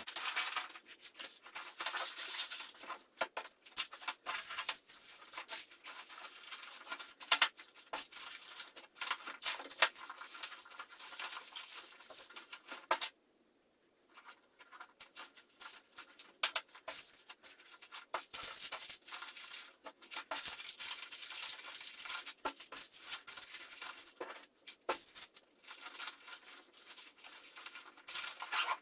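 Rustling, crinkling and clicking as survival-kit items and their plastic packaging are handled and stuffed into a nylon backpack. The sound stops completely for about a second a little past the middle.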